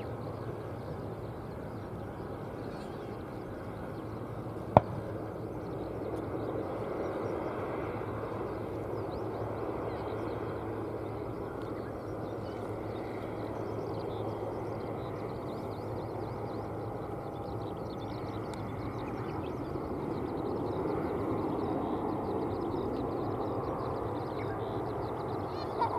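Steady outdoor background rumble that swells and eases twice, with one sharp click about five seconds in.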